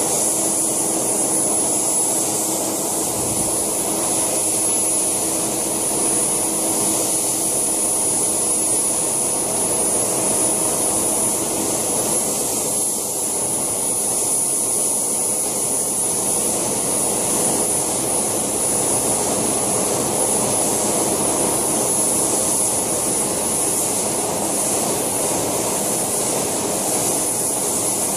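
Model helicopter turbine (JetCat PHT2) running steadily, a continuous rushing noise with a thin high whine, while the main and tail rotors turn.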